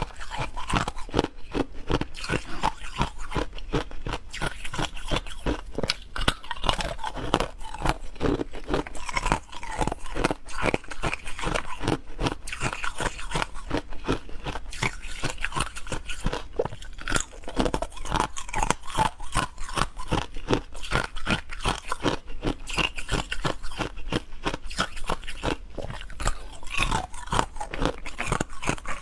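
Hard frozen ice cubes being bitten and chewed: a dense, rapid run of sharp cracking crunches.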